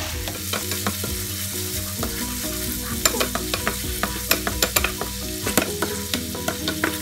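Olive oil, white wine and chopped aromatics sizzling in a frying pan while a wooden spoon stirs them. Sharp clicks of the spoon against the pan come more often from about three seconds in.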